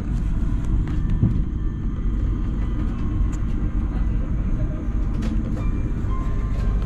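Airliner cabin noise inside an Airbus A350: a steady low rumble, with a few faint clicks.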